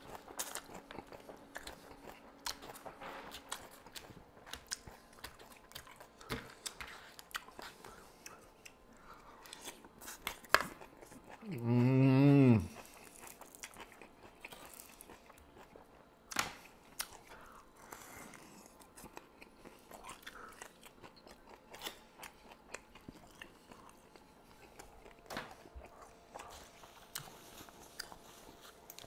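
Close-miked biting and chewing of fried chicken wings: wet mouth clicks and small crunches with sharp ticks here and there. Near the middle there is a short, loud hummed "mmm" from the eater, lasting about a second.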